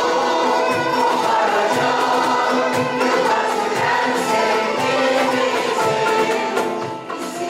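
Mixed choir of men and women singing a Turkish art song in unison, with instrumental accompaniment; the sound dips briefly between phrases near the end.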